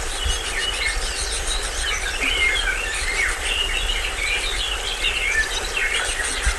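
A chorus of tropical forest birds chirping and calling over one another, with a high insect trill pulsing, over the steady rush of a small stream waterfall.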